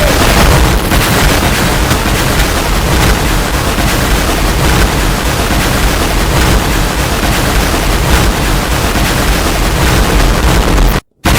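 Loud, harsh continuous noise with a heavy low rumble and crackle, cutting out abruptly for a moment just before the end.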